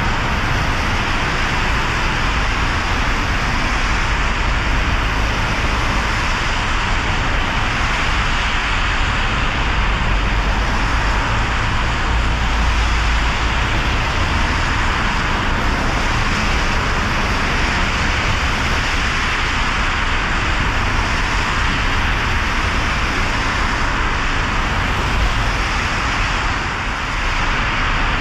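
A car driving on wet roads in the rain: a steady hiss of rain and tyres on wet tarmac over a low engine and road rumble.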